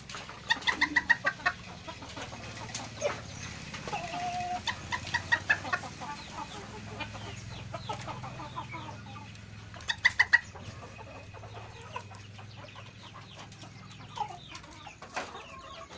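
Domestic hen making unusual clucking while straining to lay an egg. Bursts of rapid clucks come near the start, about five seconds in and again about ten seconds in, with a short held note around four seconds, over a low steady hum.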